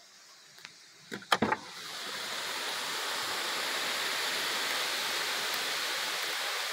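Strong storm wind heard through the open window of a parked pickup. After a brief knock about a second in, a steady rushing noise swells up and holds.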